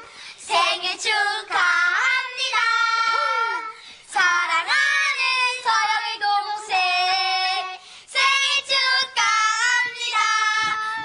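A child's voice singing without accompaniment, in short phrases broken by brief pauses.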